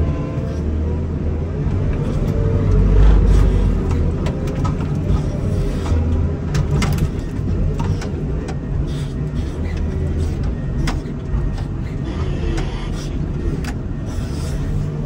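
Komatsu wheel loader's diesel engine running steadily under load, briefly louder about three seconds in, with scattered sharp clanks and knocks.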